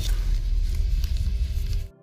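Background music: a low rumbling drone with faint held notes, fading out to silence near the end.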